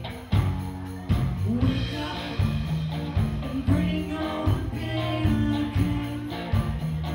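Live rock band playing: electric guitar, bass and keyboard over a steady drum beat, with bright cymbal or tambourine shimmer on top.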